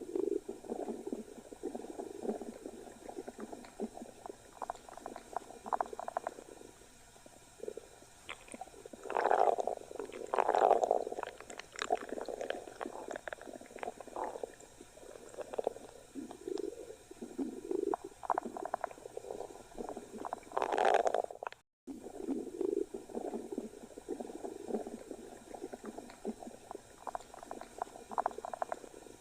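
Stomach growling: a run of irregular gurgles and rumbles, with the loudest surges about a third of the way in and again about two-thirds in, cut off by a brief total dropout just after the second.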